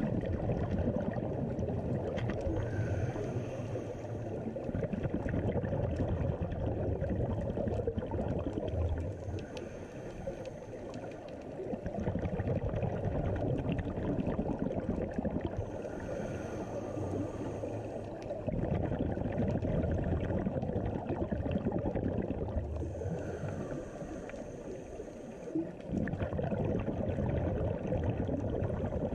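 Muffled underwater sound through a sealed camera housing: scuba regulator breathing, with bubbles gurgling out on each exhale about every seven seconds over a steady low rumble.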